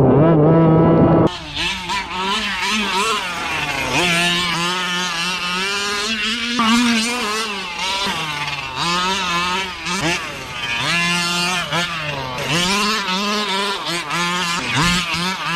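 Small two-stroke gas engine of a 1/5-scale RC car revving up and down repeatedly as the car is driven hard.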